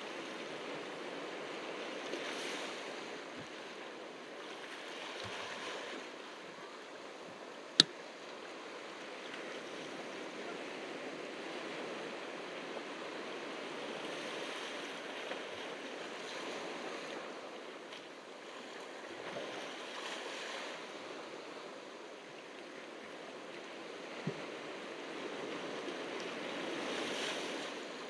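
Ocean surf washing on the shore, swelling and easing every few seconds. A single sharp click stands out about eight seconds in.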